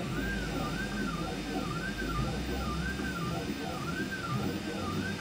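3D printer's stepper motors whining as the print head moves, the pitch rising and falling in a regular arc about twice a second as the head traces the part's rounded outline, over the steady whir of the cooling fans.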